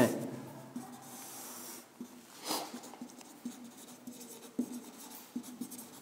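Writing strokes as a figure is drawn: faint, short scratchy strokes with quiet gaps, the longest about halfway through and a few brief ticks near the end.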